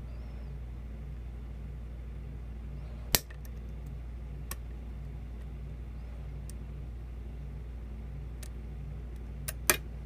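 Picking a First Watch six-pin padlock with a hook pick and tension wrench: a loud sharp metallic click about three seconds in, a few faint ticks, and a loud double click near the end, as the pins and plug shift under tension. Under it runs a steady low hum.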